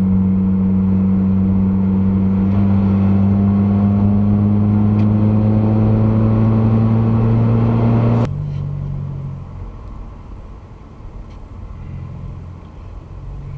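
Car engine drone heard inside the cabin, a steady low hum that rises slowly in pitch as the car gains speed. It cuts off abruptly about eight seconds in, giving way to much quieter low-speed cabin and road noise.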